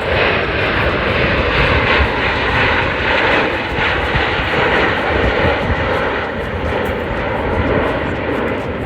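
Engine noise of Aermacchi MB-339 jet trainers, each powered by a Rolls-Royce Viper turbojet, flying in formation: a loud, steady rushing sound that swells just as it starts and eases slightly near the end.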